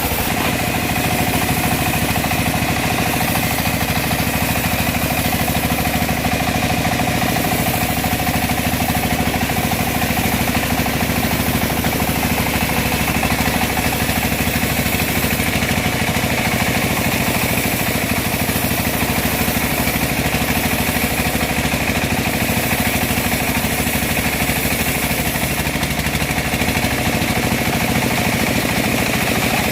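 Homemade bandsaw mill running steadily while it saws through a teak log, a constant machine drone with a steady high whine over it.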